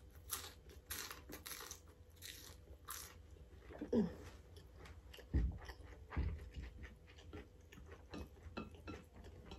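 Close crunching bites and chewing of a battered, deep-fried green bean fritter: crisp crunches come several times a second in the first three seconds, then thin out into slower chewing. A couple of dull low thumps fall in the middle.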